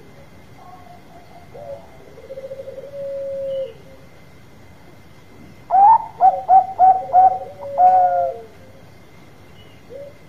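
Zebra dove (perkutut Bangkok) cooing. First comes a rolling coo that settles into a long steady note. About six seconds in there is a louder phrase of five or six quick clipped notes and a longer final note over a lower held coo.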